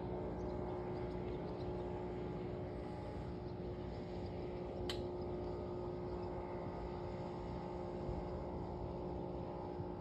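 Motorboat engine droning steadily out on the lake, a low hum with a steady pitch. A single sharp click about five seconds in.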